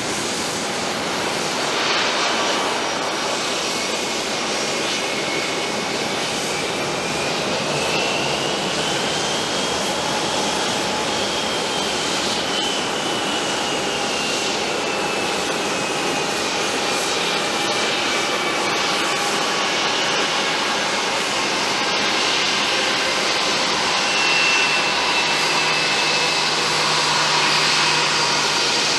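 Airbus A320 jet engines running at low power as the airliner rolls out after landing and taxis, a steady roar with a high whine that rises about ten seconds in and then slowly falls.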